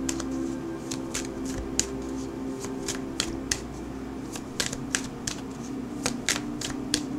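A tarot deck being shuffled by hand: a run of quick, irregular card clicks and snaps, several a second.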